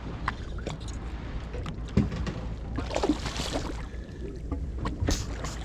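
Steady low hum of a fishing boat at sea, with scattered knocks and clatter on deck and a brief rush of noise about three seconds in.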